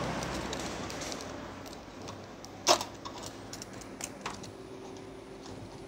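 Double-sided tape and a small circuit board being handled by hand: a few light clicks and crackles, the sharpest a little under three seconds in.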